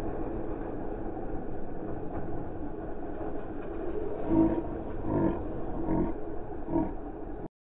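Dirt bike's single-cylinder four-stroke engine and riding noise played back at quarter speed, so it comes out as a deep, drawn-out roar. Four louder swells come in the second half, and the sound cuts off suddenly near the end.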